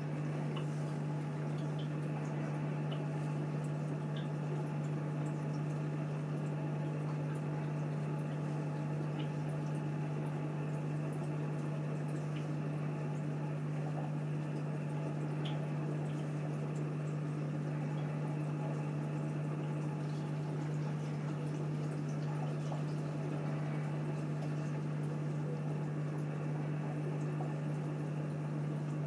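Aquarium filter running: a steady low hum with water trickling and bubbling, and faint scattered ticks of bubbles or drips.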